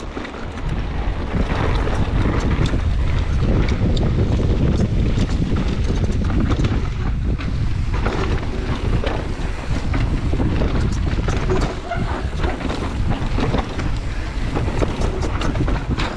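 Wind buffeting the microphone of a camera on a mountain bike ridden fast downhill, with the tyres crunching over dirt and gravel and frequent clicks and rattles from the bike over rough ground.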